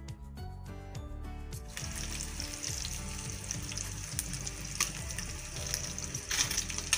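Chicken pieces for adobo frying in hot oil in a ridged grill pan, a steady sizzle with crackles that starts about two seconds in, over background music.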